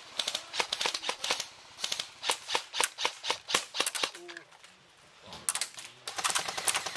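Airsoft rifle gunfire: sharp snapping shots, several a second at first, a short lull, then a fast full-auto burst of rapid clicks near the end.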